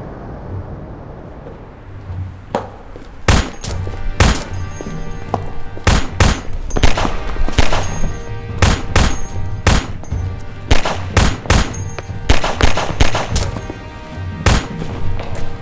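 Handgun gunshots, about two dozen sharp shots fired in irregular runs and pairs from about three seconds in until near the end, over dramatic action music.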